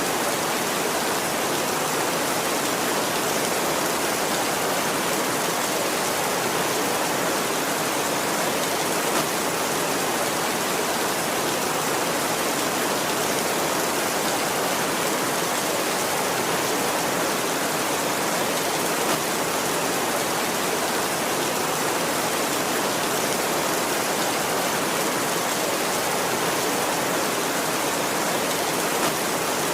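Heavy rain drumming on a tin roof, a dense and steady downpour with no thunder heard.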